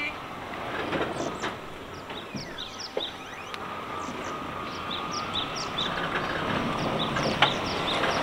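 Small electric utility cart driving: a steady thin motor whine that steps up in pitch about five seconds in, with a few clicks, growing louder as the cart comes closer.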